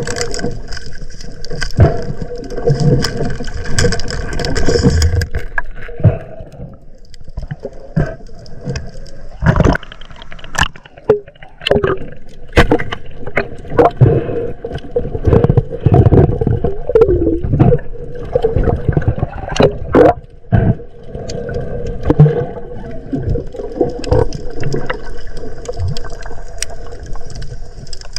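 Muffled water gurgling and sloshing around a camera during spearfishing, with many sharp clicks and knocks throughout.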